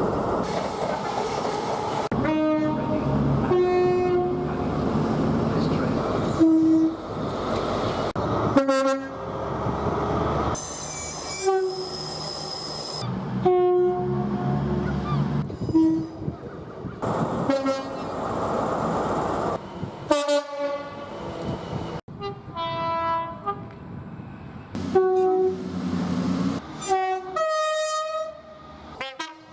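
A rapid succession of short recordings of British trains sounding two-tone horns, mostly a high and a low note in turn, over the noise of the passing trains. The clips change abruptly every few seconds.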